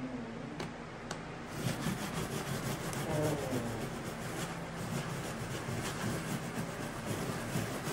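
Stiff-bristle scrub brush rubbing back and forth over a freshly glazed leaded stained glass panel, scrubbing putty residue off the glass and lead came to clean and polish it.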